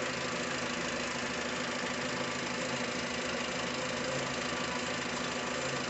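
Car engine idling steadily, with new spark plug wires fitted after a cylinder 4 misfire (P0304); the spark burn time reads a normal 1.46 ms and the engine appears to be running much better.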